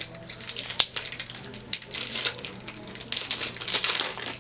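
Foil trading-card booster pack wrapper crinkling and tearing as it is opened by hand: irregular crackling with a few sharp clicks.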